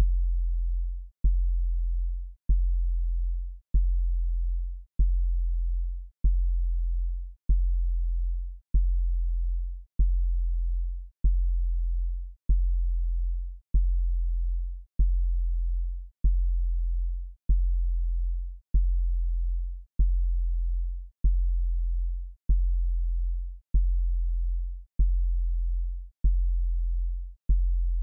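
A very deep electronic bass tone pulsing evenly, about every second and a quarter. Each pulse starts with a sharp click and fades away before the next.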